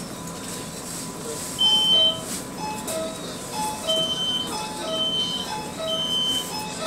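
Electronic warning beeps inside a commuter train carriage: a short high beep and two lower tones, repeating about once a second from about a second and a half in, over the carriage's steady hum.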